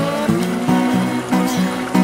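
Background music: an instrumental stretch of a guitar song, with a new note every few tenths of a second.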